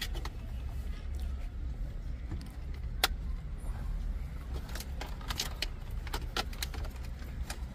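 Plastic clicks and light rattles from a dashboard trim panel and its wiring being handled. There is one sharp click about three seconds in and a run of quick clicks near the end, over a low steady rumble.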